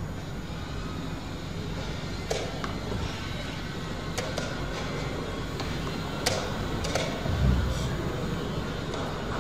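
Hall room tone: a steady low hum with several short, sharp clicks scattered through it and a dull thump about seven and a half seconds in.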